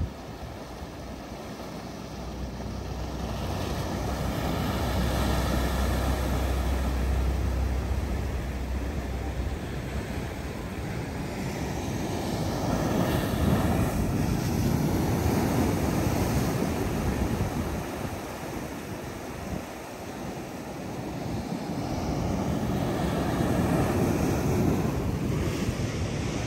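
Surf washing in, a rushing noise that swells and fades every several seconds, with wind rumbling on the microphone in the first part.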